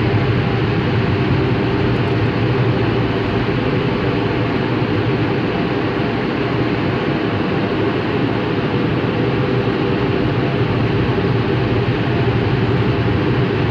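Automatic car wash's air dryer blowers running with a loud, steady rush of air and an even low hum, heard from inside the car.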